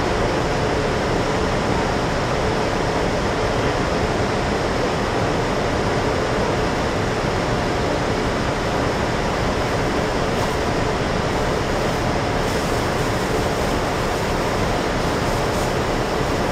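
Steady interior drone of a city transit bus standing at a stop: the engine idling under the constant rush of the bus's air conditioning, with a faint steady hum running through it.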